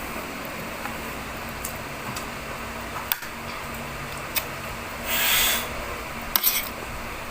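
Steady fan hum in a small room, with a few sharp light clicks and a brief hissing swish about five seconds in.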